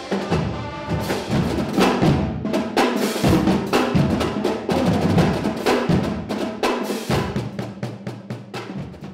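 A marching band drumline playing: snare drums and tenor drums beating a dense, accented rhythm of sharp hits, with clash cymbals crashing.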